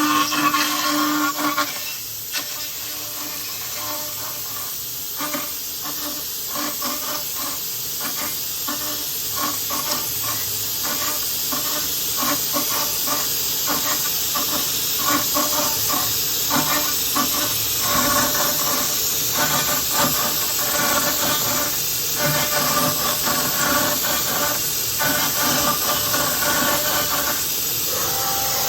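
A CNC door-edge machining centre cutting a mortise-lock pocket, its spindle giving a steady high hiss that grows slightly louder over the first few seconds.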